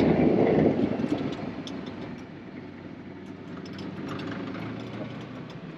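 Vehicle engine and driving noise, loud at first, easing off over the first two seconds and then running at a lower, steady level.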